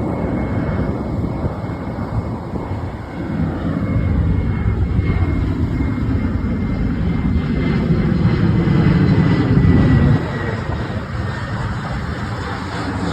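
Airliner taking off: the engines' rumble builds over the first few seconds, with a thin high whine slowly falling in pitch as the plane passes. The low rumble drops off abruptly about ten seconds in.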